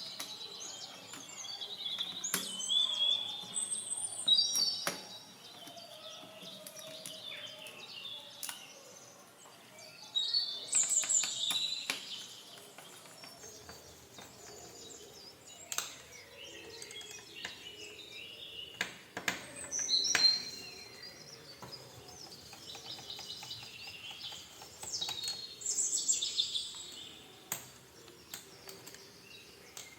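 Birds chirping in bursts of short, quick calls, with scattered sharp clicks in between.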